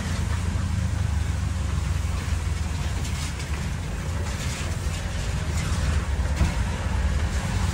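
Auto-rickshaw engine running with a steady low rumble, over a hiss of rain and wet road noise.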